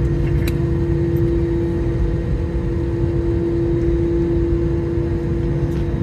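Steady airliner cabin noise inside an Airbus A321: a continuous low rumble with a strong, constant hum, and a faint tick about half a second in.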